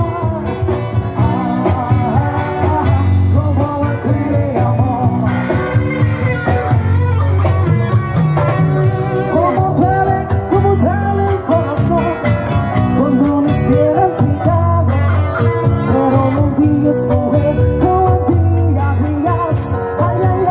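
Live band playing loud amplified music with electric guitar and drums, and a singer's voice over it.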